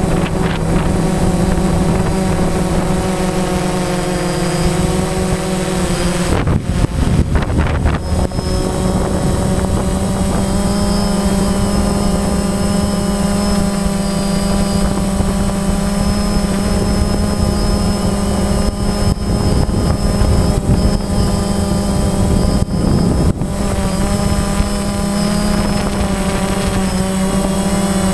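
DJI Phantom quadcopter's motors and propellers whining steadily, heard close up from the camera on board, the pitch shifting slightly about seven seconds in. Rushes of wind hit the microphone about seven seconds in and again after about twenty seconds.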